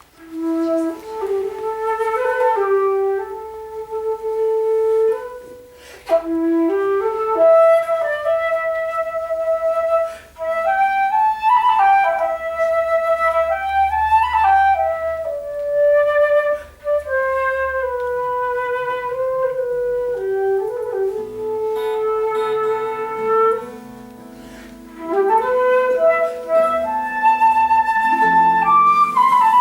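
Flute playing a slow folk melody in phrases. Lower Celtic harp notes join in about two-thirds of the way through.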